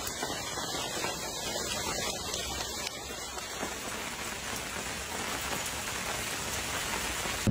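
Coarse volcanic ash and cinders from Etna falling and pattering steadily on pavement and rooftops, a dense patter like heavy rain.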